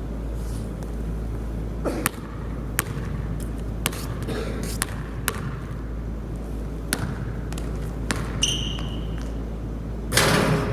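Basketball bouncing on a hard court: sharp, irregular bounces about once a second, a brief high squeak past the middle, and a louder noisy clatter near the end.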